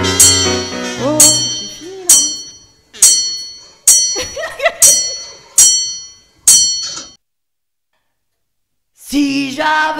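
Roland digital piano playing accented chords, struck one at a time about once a second and each left to fade, after a short held chord at the start. The playing stops dead for about two seconds, then piano and voice come back in near the end.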